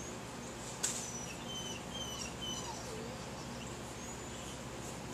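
Quiet outdoor ambience with a songbird chirping a short run of quick high notes, and a single sharp tick about a second in.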